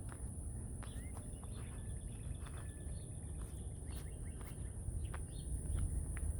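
Faint, scattered chirps of birds over a steady low rumble of outdoor background noise, with a thin, constant high-pitched hiss.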